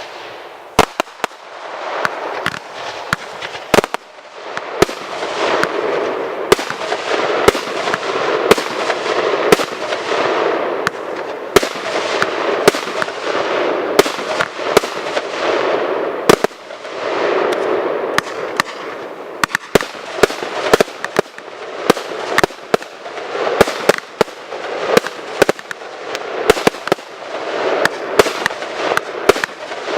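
Fireworks display: a steady run of sharp bangs, several close together at times, over a dense rushing, crackling noise that swells and fades in waves.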